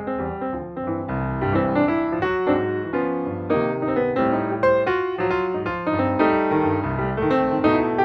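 Background piano music, a steady flow of notes with a bass line.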